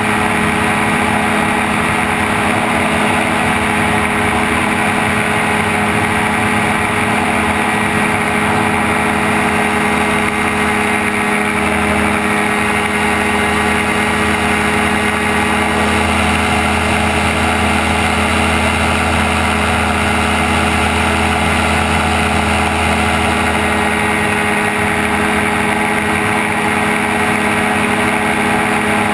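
Gyrocopter engine running steadily in flight, an even drone that stays level throughout, with a deeper low note coming in from about twelve seconds to twenty-four seconds in.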